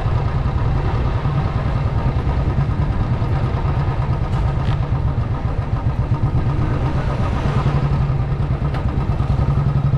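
Motorcycle engine running at low speed as the bike rolls along, heard from the rider's seat as a steady low pulsing note; the pulses come more evenly near the end.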